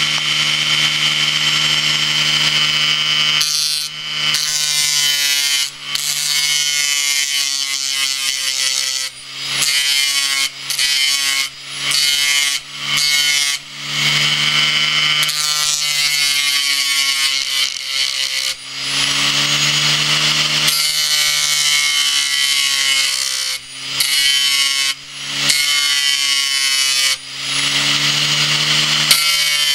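A hard-drive motor spinning an abrasive-covered platter, with a steel screwdriver tip being ground against it: a harsh grinding hiss over the drive's humming whine. The grinding starts about three and a half seconds in and breaks off briefly many times as the tool is lifted and pressed back on.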